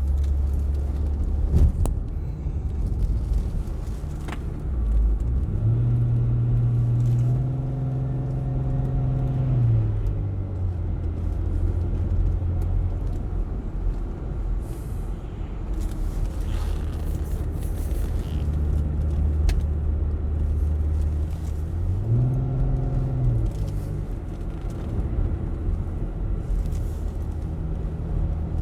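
Car engine and road noise heard from inside the cabin while driving, a steady low hum. The engine note steps up in pitch for a few seconds about five seconds in, and again briefly around twenty-two seconds in, before settling back.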